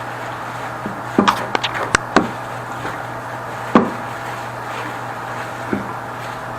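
Wood being knocked: a quick run of sharp taps about a second in, one louder knock near four seconds and a lighter one near six. This is typical of a leg being tapped into its dado joint to set it straight.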